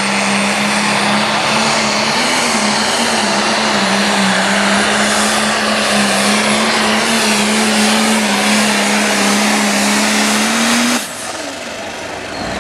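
Pro stock John Deere pulling tractor's turbocharged diesel engine at full throttle, hauling the weight-transfer sled down the track: a loud, steady, high engine note with a slight waver in pitch over a wide rushing noise. The sound drops away sharply about eleven seconds in.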